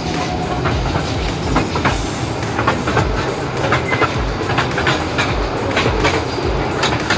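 Small joy-ride train running on its track: a steady rumble with repeated clicks and knocks of the wheels over the rails.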